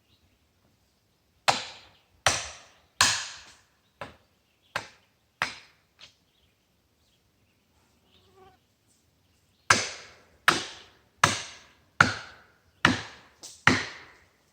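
Axe chopping into dead ash wood: sharp, evenly paced strokes about three quarters of a second apart, a first run of seven that grows softer, a pause, then a second run of six loud strokes.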